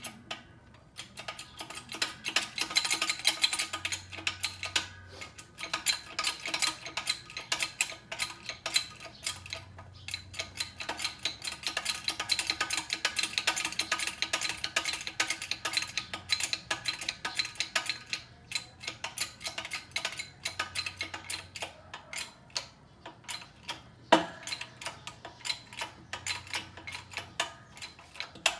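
Homemade hydraulic press driven by its pump, a fast, dense ticking rattle with a few short pauses while the ram moves down onto the workpiece. One sharper click comes near the end.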